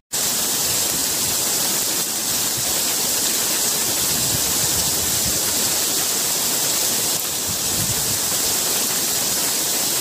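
Steady hiss of falling water from a tall waterfall, an even rush with most of its strength in the high end and no let-up.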